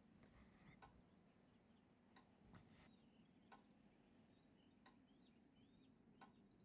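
Near silence: room tone with a faint, slow, even tick about three times every four seconds, and a few faint bird chirps.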